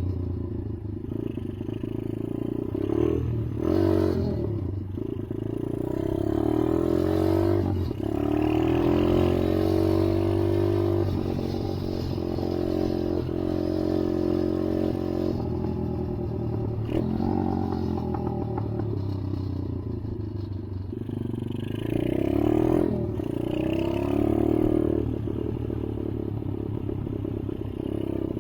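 ATV engine running as the quad is ridden, its pitch rising and falling with the throttle, with rattling and scraping from the ride.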